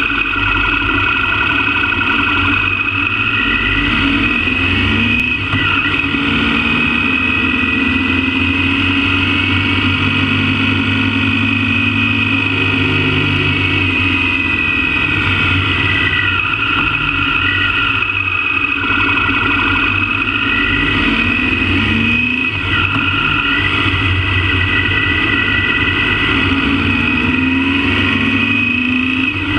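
Motorbike engine running while riding along, its pitch climbing and falling several times with the throttle.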